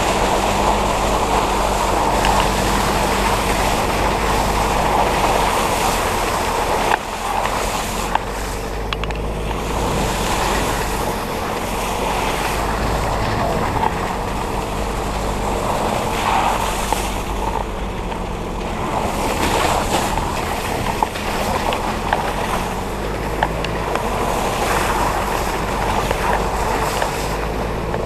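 A 4x4 driving over snow, heard from outside on the roof: wind rushes over the microphone, with the vehicle's engine running steadily underneath.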